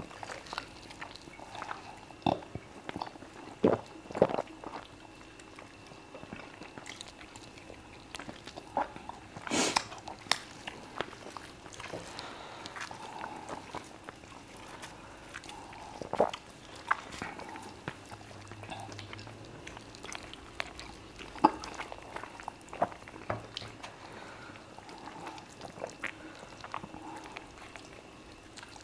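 Close-miked eating of fufu and chicken by hand: chewing, lip smacks and mouth sounds, with scattered short clicks and smacks throughout.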